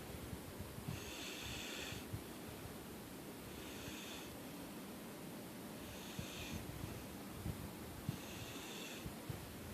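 A sleeping person snoring, about four breaths, one every two and a half seconds or so. Each breath has a breathy hiss over a low, uneven rattle.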